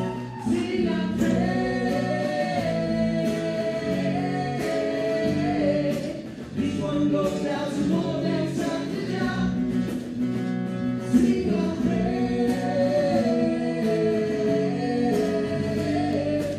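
A live band playing a rock song: a singer's melody over guitar and keyboard, with a steady rhythm.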